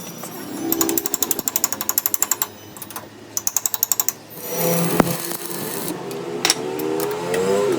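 Rapid mechanical hammering from a power tool, about nine blows a second, in two bursts of roughly two seconds and one second. It is followed by a motor running with a pitch that wavers up and down.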